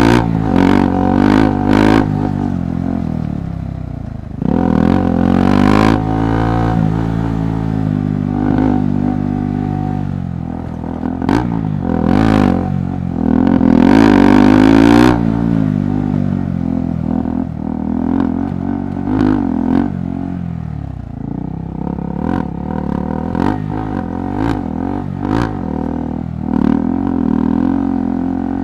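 KTM 390 Adventure Rally's single-cylinder engine on a rough trail, the revs rising and falling over and over as the throttle is worked, with clattering knocks from the bike over rough ground.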